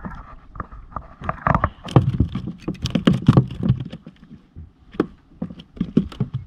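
Irregular knocks and clatter against a plastic fishing kayak's hull and fittings as the rod, reel and catch are handled, thickest about two to four seconds in and again near the end.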